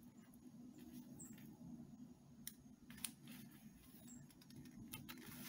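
Near silence: a low steady room hum with a few faint light clicks and taps from fingers handling washi tape on planner paper.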